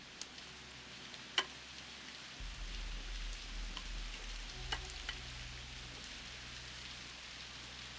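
Wood campfire crackling over a steady hiss, with a few sharp pops, the loudest about a second and a half in. A low hum comes in about two and a half seconds in.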